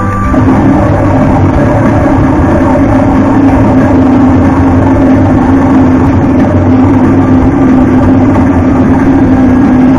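Timberwolf Grand video slot machine's bonus-wheel spin sound effect: a loud, steady rumbling drone with a held low tone, beginning abruptly as the wheel starts to turn.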